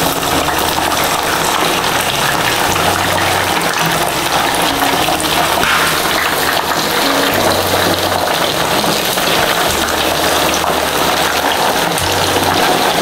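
Batter-coated chicken lollipops sizzling steadily as they shallow-fry in hot groundnut oil.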